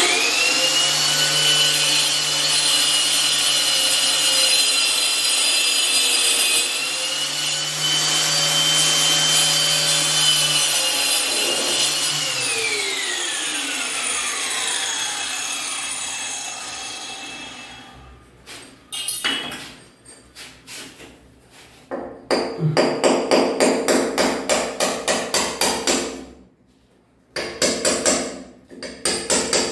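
Angle grinder with a masonry disc running at full speed, cutting into ceramic wall tile with a steady high whine that sags slightly in pitch partway through. About twelve seconds in it is switched off and winds down with a falling whine. It is followed by hammer-and-chisel blows chipping at the tile and wall, first scattered, then in quick runs of about three strikes a second.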